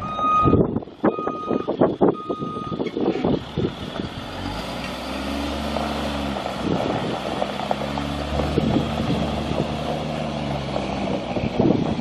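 Backup alarm beeping about once a second amid a few knocks, stopping about two and a half seconds in. Then the bus's Caterpillar 3126 inline-six diesel runs, its pitch rising and falling.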